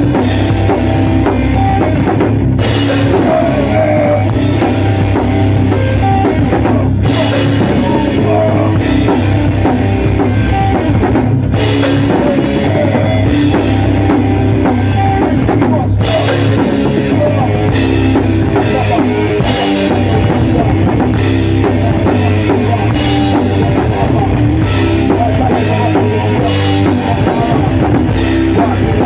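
Hardcore punk/metal band playing at full volume: a drum kit under distorted electric guitar, with cymbal crashes about every four to five seconds.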